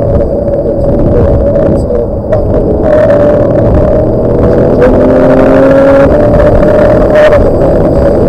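Porsche 911's flat-six engine running hard on track, heard from inside the cabin. It eases briefly about two seconds in, then pulls again at high revs.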